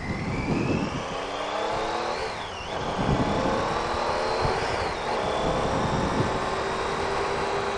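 Triumph Tiger 800 XRt's three-cylinder engine accelerating through the gears under wind rumble. Its pitch rises and drops at an upshift about two and a half seconds in, rises again and drops near five seconds, then holds steady.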